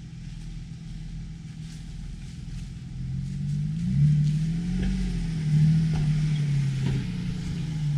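Off-road vehicle's engine under load, its pitch rising and falling as the throttle is worked, growing louder about three seconds in.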